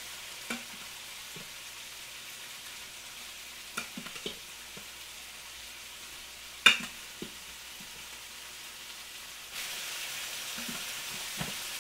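Pork fried rice sizzling in a hot wok as it is stirred with a silicone spatula: a steady frying hiss with a few scrapes and knocks of the spatula against the pan, the sharpest about two-thirds of the way through. The sizzle grows louder near the end.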